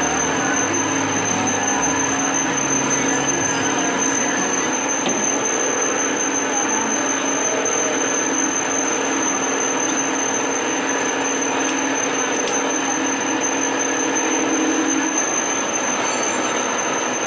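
Metal lathe running while it turns a nylon blank: a steady hum that stops about fifteen seconds in, over constant workshop machine noise with a high steady whine.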